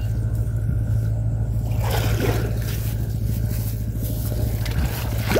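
A small engine running steadily with a low, even hum. Water trickles and splashes briefly about two seconds in.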